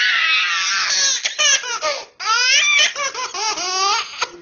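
Baby's high-pitched belly laughter in repeated peals, breaking off briefly about two seconds in, then starting up again.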